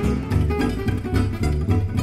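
Gypsy jazz played live on two Selmer-Maccaferri-style acoustic guitars and a plucked double bass: a steady strummed rhythm and a moving bass line under picked guitar notes.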